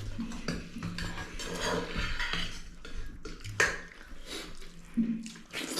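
Plates and utensils clinking and scraping as food is served and eaten, in short irregular clicks.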